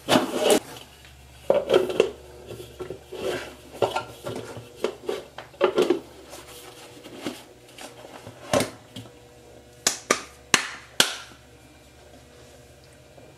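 Hard plastic parts of a disco ball light being handled and fitted together: the clear dome clicking and knocking against the black base in irregular taps and clacks. A few sharper clicks come close together just after the middle, then the handling stops.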